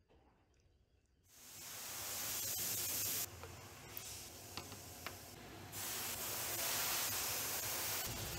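A steady, even hiss fades in over the first couple of seconds. It drops back for a few seconds in the middle, then returns, with a few faint ticks.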